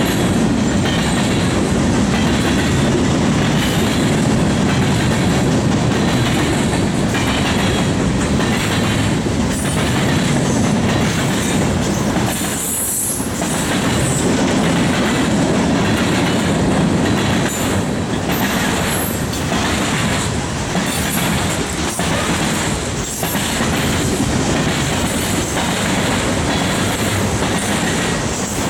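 Freight train cars rolling past with a steady heavy rumble, the wheels clicking rhythmically over the rail joints, and a high squeal from the wheels now and then.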